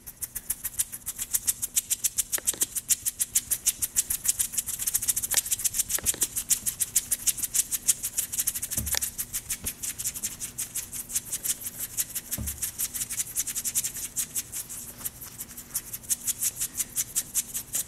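Eerie soundtrack music: a fast, even shaker-like rattle, several strokes a second, over a faint low drone, with four low tones that fall in pitch a few seconds apart.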